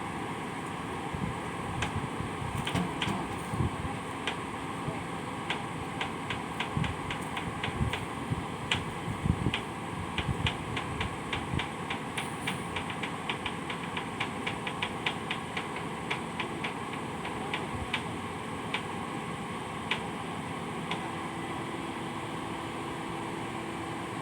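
Steady mechanical hum with scattered knocks, then a long run of sharp metallic ticks, several a second, through the middle. These are tool and metal-on-metal sounds from installing an excavator engine.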